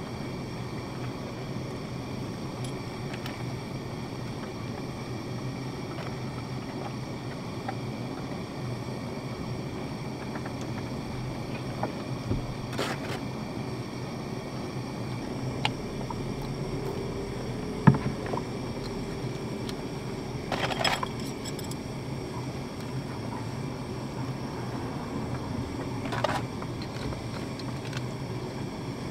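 Portable butane gas stove burning steadily under a grill pan, a low even hum, with a few light clicks and taps of chopsticks and dishes; the sharpest tap comes about eighteen seconds in.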